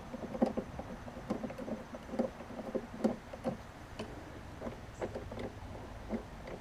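Irregular light clicks and knocks, two or three a second, of metal and plastic parts being handled as the push mower's handle bolts and knobs are worked loose with a Torx bit.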